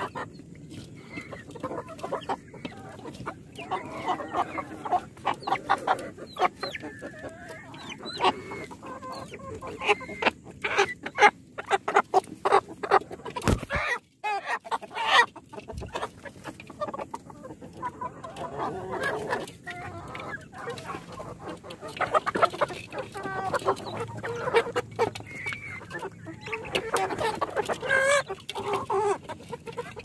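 A flock of chickens, mostly black Kadaknath, clucking continuously in a crowded shed. Sharp taps and knocks come through the calling around the middle.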